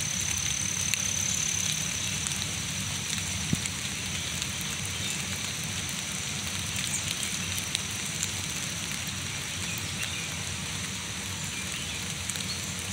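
Steady heavy rain falling through the trees onto leaves, an even hiss dotted with many small drop ticks, over a low rumble. A thin, steady high-pitched tone runs alongside.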